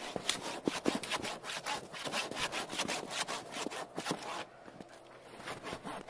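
Small hand saw cutting through a dead, fallen branch in quick back-and-forth strokes. The strokes pause briefly about four and a half seconds in, then start again near the end.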